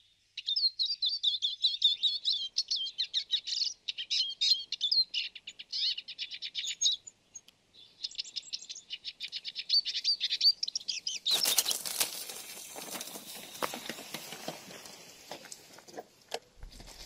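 A songbird singing a fast, varied warbling song full of trills, in two long runs with a short break about seven seconds in. About eleven seconds in the song stops and loud rustling with many scattered clicks takes over, fading somewhat towards the end.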